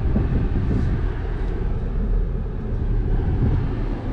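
Pickup truck driving slowly, heard from inside the cab: a steady low rumble of engine and tyres.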